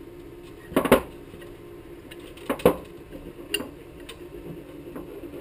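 Small hard parts clicking and knocking as a camera gimbal is handled and fitted onto a quadcopter frame: a pair of knocks about a second in, another pair past halfway and a lighter click after, over a faint steady hum.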